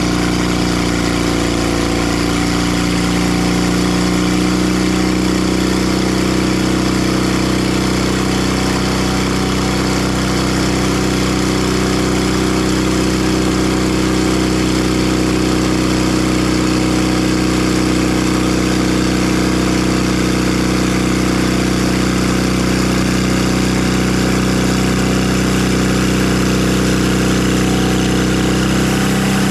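Engine of a Timber Harvester bandsaw mill running steadily at an even speed, with a steady hiss above its low hum.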